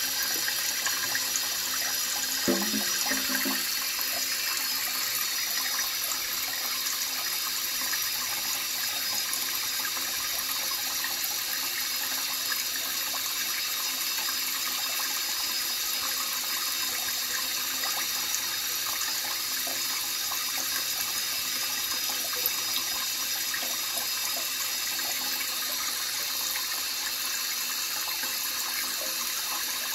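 Tap running steadily into a stainless steel sink partly filled with water: an even splashing hiss.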